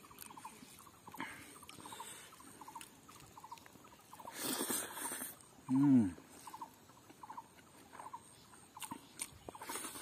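A small animal's chirp repeating about twice a second in the background. There is a brief rustle about four and a half seconds in, and a short falling hum from a voice around six seconds in, the loudest sound.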